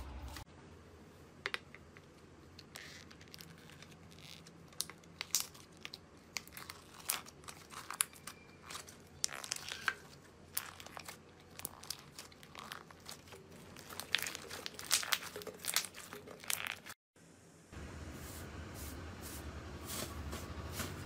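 Hands squeezing and pulling apart slime, first bead-filled floam and then glossy slime, giving many sharp, irregular crackles and pops. The sound cuts out briefly near the end, then comes back as a steadier hiss with fainter pops.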